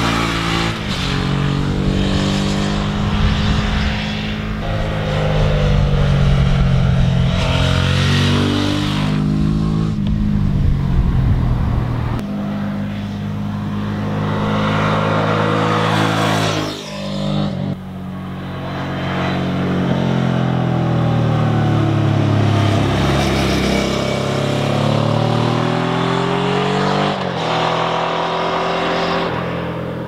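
Suzuki V-Strom 650 XT's 90-degree V-twin engine, loud, as the motorcycle rides past several times: its pitch climbs under acceleration, breaks briefly at gear changes, and falls away as the bike passes and backs off.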